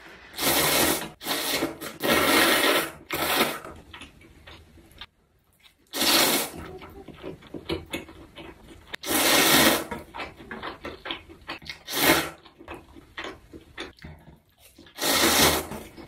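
A person slurping spicy Baehongdong bibim noodles off chopsticks: four slurps in quick succession in the first few seconds, then single slurps about every three seconds, with wet chewing and mouth sounds between.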